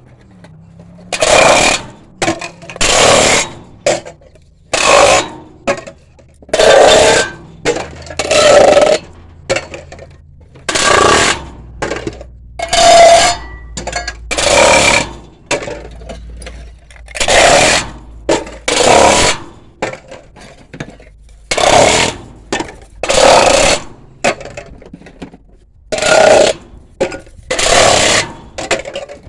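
Metal cans being crushed one after another, a loud crunch about every one and a half to two seconds, over a dozen in all, over a low steady hum.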